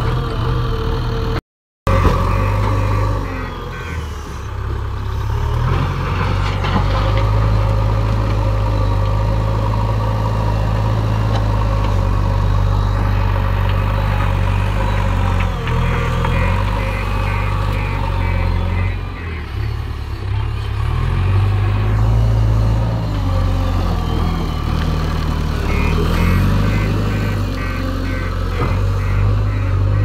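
Diesel engine of a JCB 3DX backhoe loader running under load as it digs and moves earth, a steady low drone that shifts as the throttle changes.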